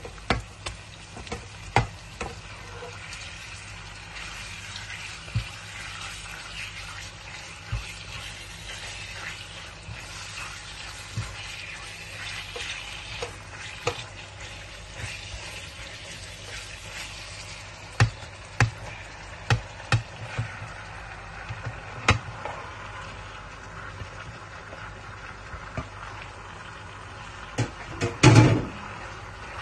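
Onions and raw pork and chicken sizzling in a hot wok, stirred with a silicone spoon, with a dozen or so sharp knocks of the spoon and meat against the pan. There is a louder scrape lasting about a second near the end.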